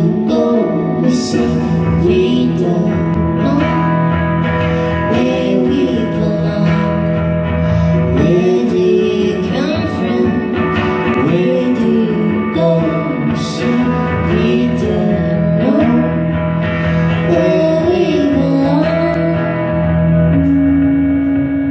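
Live music: singing with guitar accompaniment over a steady held low note, with a higher held note coming in near the end.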